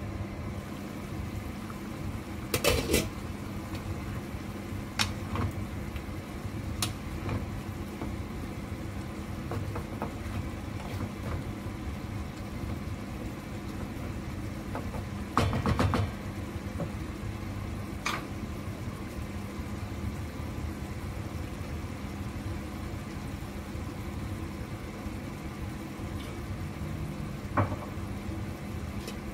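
Steady low kitchen hum with a few sharp clinks and knocks, the loudest about three seconds in and again near the middle: a glass lid and a wooden spatula knocking against a frying pan of simmering braised pork.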